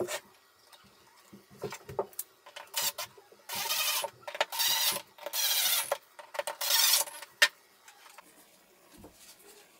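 Cordless DeWalt impact driver driving wood screws into a walnut board, in four or five bursts of about half a second each, with a sharp click at the end. Light knocks of wood being handled come before it.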